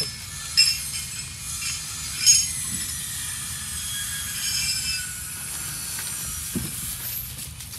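Car jack being worked under a long-stored 1964 VW Beetle, with metal clicking and squealing as the car is raised: sharp clicks about half a second and two seconds in, then a long high squeal that slowly falls in pitch.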